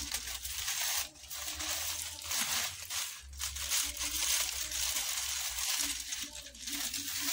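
Dry fan-thatch palm strips rustling and crackling as a tied bundle is handled and its ends bent over by hand, with short lulls about a second in, around three seconds and again near the end.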